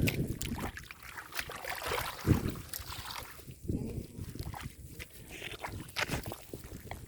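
Shallow muddy water sloshing and splashing in irregular bursts, with a few knocks, as hands work through it, the loudest splash about two seconds in.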